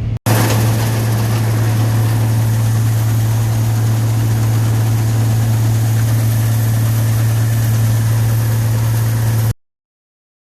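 Gleaner combine running at harvest, a loud steady low drone of engine and machinery with a strong hum underneath, cutting off abruptly near the end.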